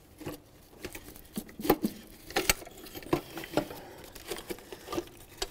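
Scattered light clicks and knocks of tools and parts being handled while the plastic intake manifold is taken off a GM 3.8-litre V6. The sharpest knocks fall a little under two seconds and about two and a half seconds in.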